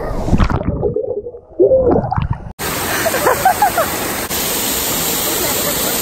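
Waterfall and the churning pool beneath it, splashing and sloshing close to the microphone; about two and a half seconds in, a cut to the steady, even rush of the falling water.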